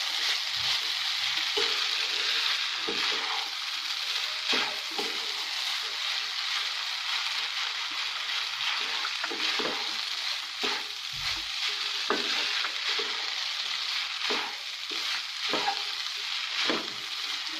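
Vermicelli upma sizzling in a nonstick kadai over a high gas flame, with a spatula stirring and scraping through it in irregular strokes against the pan.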